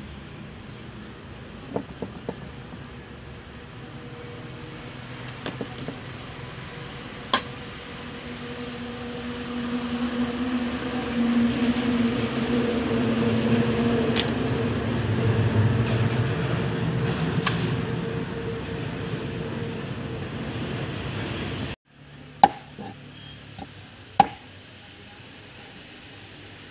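Scattered sharp knocks and clicks of a boti blade cutting through poultry on a wet wooden board. Behind them a steady engine-like hum swells over the middle part and stops suddenly near the end.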